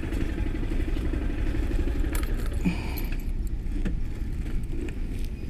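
Single-cylinder engine of a Honda CG Fan 160 motorcycle idling with a steady pulsing low note. A few light clicks and rattles about two and four seconds in.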